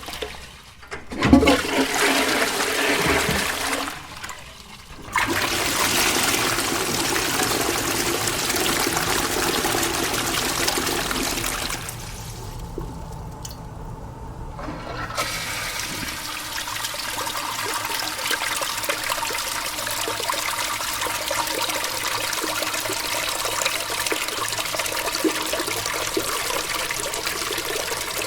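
Toilet flushing: a sudden loud start, then rushing water that eases after about twelve seconds into a steadier, quieter hiss of running water as the tank refills.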